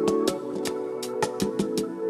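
Background music: sustained instrumental tones over a steady beat of light ticking percussion.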